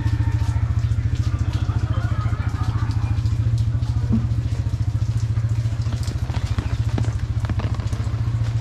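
Motorcycle engine idling close by, a steady low throb with an even, rapid pulse.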